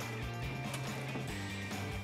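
Background music with a steady beat and a sustained bass line.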